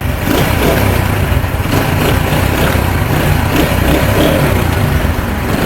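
Honda CD70 motorcycle engine running steadily after a repair to its clutch side: a new bearing fitted inside the clutch cover to cure a noise that came when the clutch was pressed.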